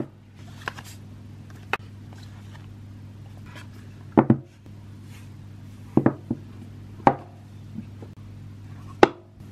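Hands handling a cardboard sunglasses box and a hard clamshell glasses case: a handful of separate knocks and taps, the loudest a double knock about four seconds in, over a steady low hum.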